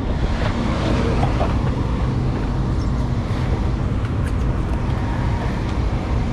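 Steady rumble of a boat's four 300 hp outboard motors running, with a constant hiss over it.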